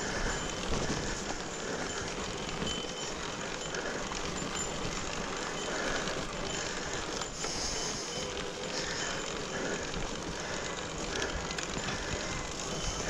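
Mountain bike riding along a wet dirt logging trail: a steady rolling noise of tyres and drivetrain over the rough ground, with no single event standing out.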